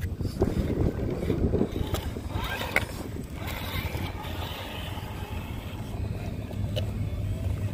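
Radio-controlled scale rock crawler with a Jeep body running its small electric motor and gears as it crawls over gravel and lava rock, with a few short clicks of tyres and chassis on the rocks, over a steady low rumble.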